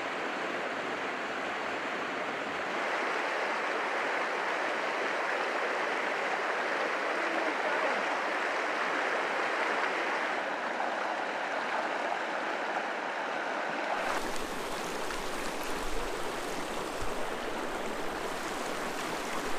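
A shallow, rocky mountain creek rushing over stones in riffles, a steady wash of water noise. About 14 seconds in the sound changes abruptly to a fuller, brighter rush with a low rumble underneath.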